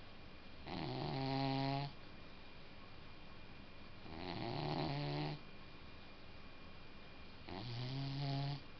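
A sleeping pet snoring: three snores, each a low droning tone just over a second long, coming about every three and a half seconds.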